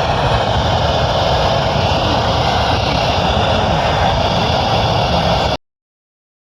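Steady, loud rushing noise with a low rumble underneath, cut off abruptly about five and a half seconds in.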